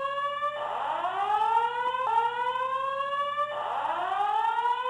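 Building fire alarm sounding a repeating whoop: a loud electronic tone that sweeps upward in pitch and levels off, then restarts low every second or two.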